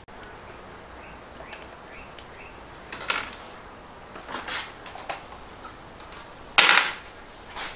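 Small metal clinks and taps of screws and tools being handled, then a brief half-second whirr of a power drill about two-thirds of the way through.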